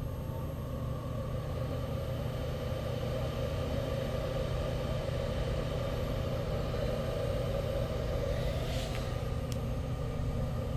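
Comec ACF200 boring machine running steadily on rapid feed, its motor driving the boring spindle down into the bore. A single click sounds near the end.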